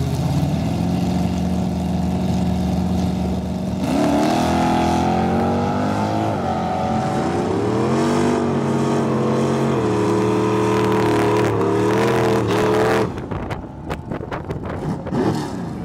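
An early-1970s Dodge Charger muscle car's V8 accelerating hard down a drag strip, its pitch climbing and dropping back several times as it shifts up through the gears. About 13 seconds in the engine sound falls away suddenly, leaving fainter, more distant engine and wind noise.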